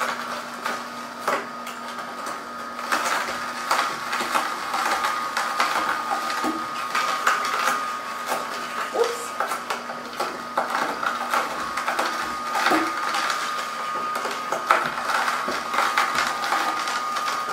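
Horizontal auger juicer running with a steady motor whine while carrot sticks are pushed in and crushed, giving irregular crunching cracks.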